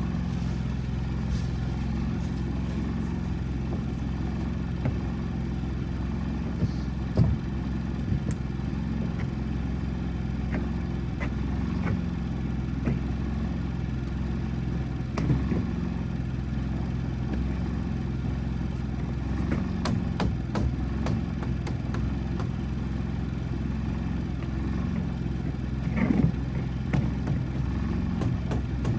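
An engine running steadily at a constant speed, with scattered short knocks and clatter over it.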